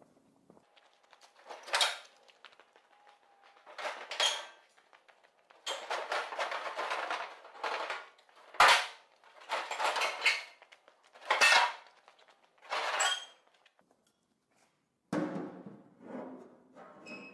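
Hand-formed aluminium car body panels being handled: a string of irregular sheet-metal scrapes, rattles and clatters, with one sharp knock about halfway through.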